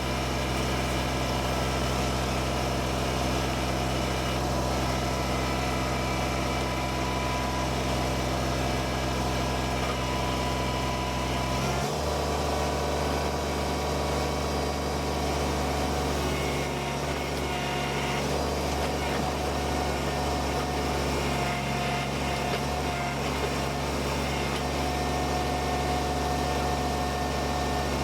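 Kubota BX23S compact tractor-loader-backhoe's three-cylinder diesel engine running steadily; its note shifts once, about twelve seconds in.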